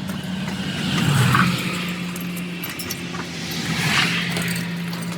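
A steady low engine hum, with road traffic passing by twice, swelling and fading about a second in and again about four seconds in.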